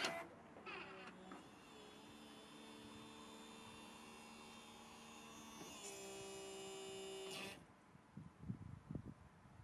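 A loud click as the boot-lid latch releases, then the BMW E38's electric hydraulic boot-lid pump runs with a steady humming whine as it raises the lid. Its note steps up about six seconds in and it cuts off about a second later. The pump has just been refilled with fresh oil and is being cycled to purge air from the system.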